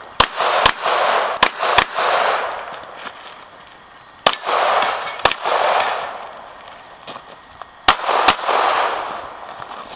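Pistol shots fired during a timed match stage, about eight in all and mostly in quick pairs about half a second apart, with pauses of one to three seconds between pairs. Each shot is followed by a long echo.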